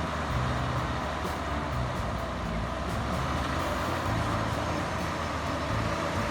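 Heavy vehicle engine running steadily with a low rumble.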